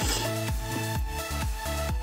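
Background electronic dance music with a steady kick-drum beat and synth chords.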